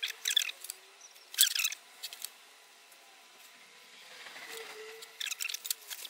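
Paper and card rustling and scraping on a wooden bench as they are handled: a few short crisp rustles, a quieter stretch about halfway through, then more rustling near the end.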